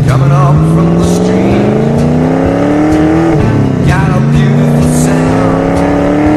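Ford Falcon XW GTHO Phase 1's 351 Windsor V8 accelerating hard, revs climbing steadily, dropping sharply at a gear change about halfway, then climbing again in the next gear.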